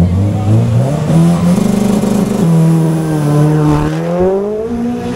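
Sports car engine accelerating hard, its pitch climbing in steps, dropping once about halfway through as it shifts up a gear, then climbing again.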